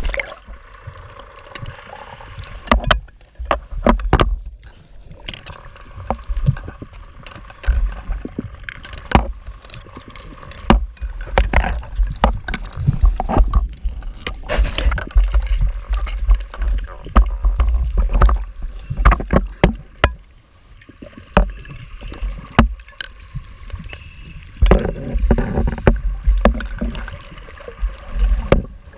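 Underwater sound of a scuba dive: exhaled regulator bubbles rumbling in bursts every several seconds, with scattered clicks and knocks.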